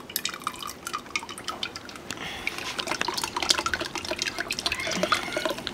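Chicha de jora trickling and dripping from a squeezed cloth strainer of corn mash into a bucket of liquid: many quick, irregular drips and small splashes.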